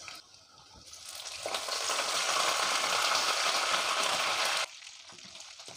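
Curry leaves and slit green chillies sizzling in hot oil. The sizzle swells about a second in as the leaves hit the oil, then cuts off suddenly near the end.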